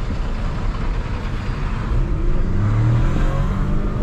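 Volkswagen Virtus 1.0 TSI three-cylinder turbo engine pulling through its still-fitted stock muffler (downpipe, no catalytic converter), heard from inside the car with the window down. A quiet, low exhaust drone runs over road noise, and the engine note rises from about two seconds in.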